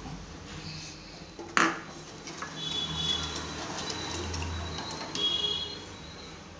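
A steel ladle stirring and scraping around a stainless-steel saucepan of milky vermicelli-and-sago payasam, with a sharp metal clink about a second and a half in and two short squeaky scrapes later on.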